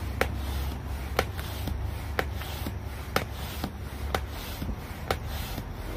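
Stand-up paddleboard hand pump being worked by hand to inflate an inflatable truck-bed topper: a regular stroke with a sharp click about twice a second and a rushing hiss of air between.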